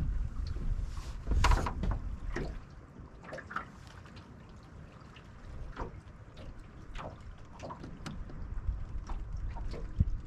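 Wind gusting on the microphone, with water lapping and trickling against the boat hull and scattered small ticks and splashes. There is a louder burst about one and a half seconds in.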